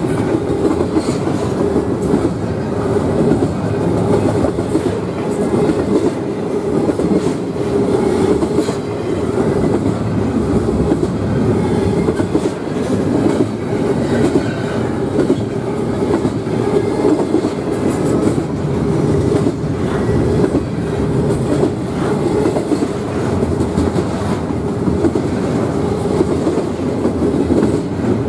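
Double-stack intermodal well cars of a CSX freight train rolling past: a loud, steady rumble of steel wheels on rail with scattered clacks.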